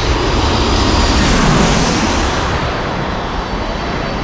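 Jet airliner flying low overhead, its engines making a loud, continuous roar that peaks about a second or two in and then eases slightly.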